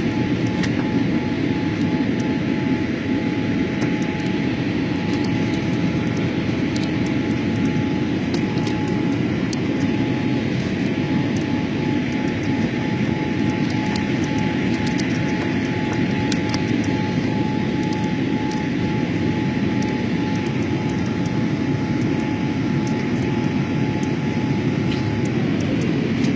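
Steady roar of a jet airliner's engines and rushing air, heard inside the passenger cabin during the climb after takeoff, with a thin steady whine over it that cuts off near the end.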